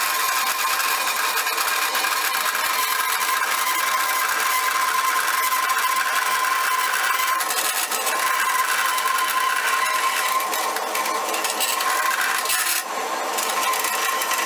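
A vertical bandsaw cutting a slot into the flattened steel head of a bolt: a steady rasping of the blade through the metal over a steady whine. The sound eases for a moment near the end.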